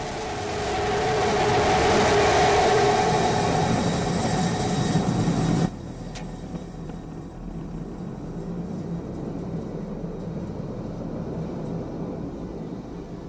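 Starship SN15's Raptor rocket engines firing in the landing burn: a loud rushing noise that swells about a second in, then cuts off suddenly near the middle as the engines shut down on touchdown. A fainter steady noise remains afterwards.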